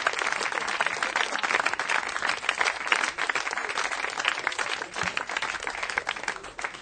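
Audience applauding: dense clapping that thins and dies away near the end.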